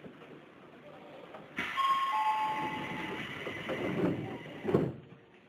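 Train door chime: two steady falling notes over a louder stretch, then the doors slide shut with a thump near the end.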